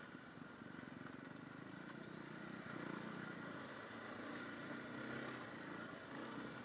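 KTM 500 EXC's single-cylinder four-stroke dirt-bike engine running at light, fairly steady throttle on a trail, its note swelling and easing slightly with the throttle.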